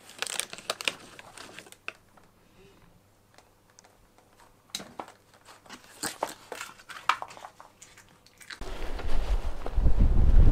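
Crunching and chewing of a crisp biscuit: a scatter of small sharp cracks and crackles. About eight and a half seconds in it gives way to louder, steady wind rumble on the microphone while cycling.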